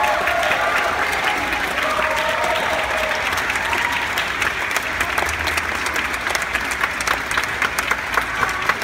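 Audience applauding: dense clapping that thins into more scattered claps near the end.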